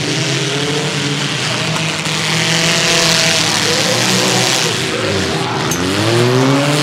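Several small demolition-derby cars running together on a dirt track, their engines revving and dropping over one another, with one engine revving up near the end. A rush of noise swells around three seconds in.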